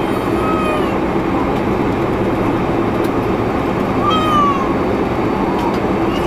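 Steady cabin noise inside a Boeing 747-400 airliner, with a short high-pitched cry that falls in pitch, heard three times: just after the start, about four seconds in, and near the end.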